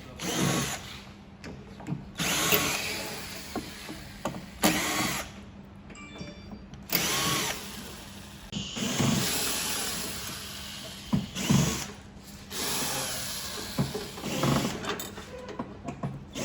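Cordless drill-driver whirring in short bursts, about eight times, each spinning up and winding down, as screws are backed out to dismantle the board.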